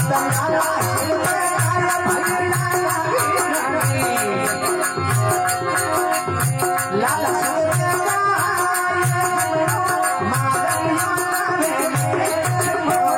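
Rajasthani desi bhajan music: held melodic tones over a regular drum beat and jingling rhythmic percussion.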